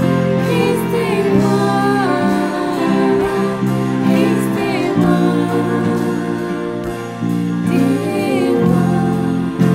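A worship song sung in French by a woman's voice, accompanied by piano, cello and electric bass guitar.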